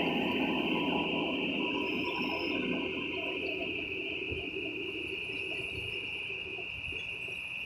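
Kubota combine harvester's engine running, growing fainter as the machine moves away, over a steady high-pitched insect buzz.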